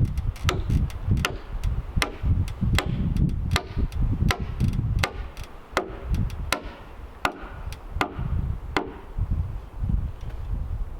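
A hand tool striking into a wooden timber, about a dozen sharp, evenly paced blows, roughly one every three-quarters of a second, stopping about nine seconds in.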